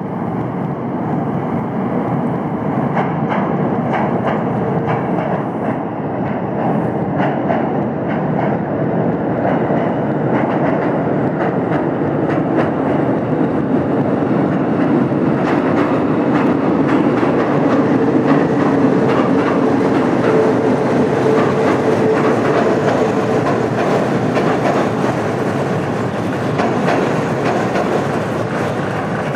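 Train running steadily on the rails: a continuous rumble of railcars with rapid clicks and clatter from wheels and track, and a faint steady tone in the middle.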